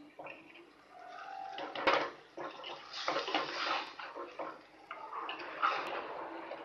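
A spoon stirring chicken pieces through thick, oily masala in a pot: wet sizzling and scraping in uneven strokes, with a sharp clink of the spoon on the pot about two seconds in.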